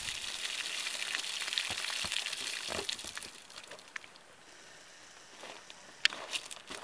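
Water pouring and splashing out of a plastic gallon jug for about three seconds, then fading away, with a few sharp clicks near the end.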